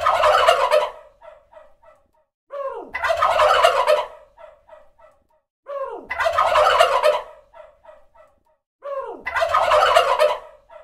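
Male turkey gobbling: four loud, rattling gobbles about three seconds apart, each opening with a falling note and trailing off in a few short, softer notes.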